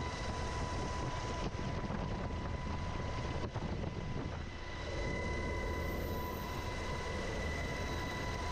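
UH-60 Black Hawk helicopter running: a steady, dense rotor and turbine noise with a constant high whine.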